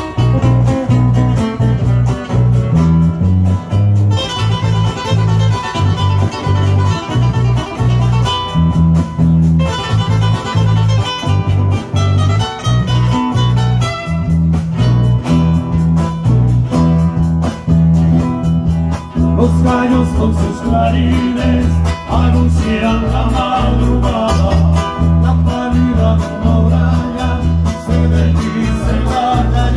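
Instrumental folk music from a small band: acoustic guitar playing over a steady, bouncing bass line, with a melody line above that grows more prominent in the second half.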